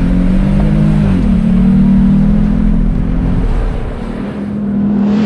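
A vehicle engine running at a steady, loud pitch, with a slight shift in tone about a second in and the low rumble easing off after about four seconds.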